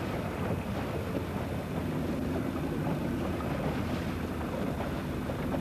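Wind buffeting the microphone over rushing, splashing water as racing sailing dinghies drive through a choppy sea in a strong breeze. It makes a steady, unbroken noisy wash.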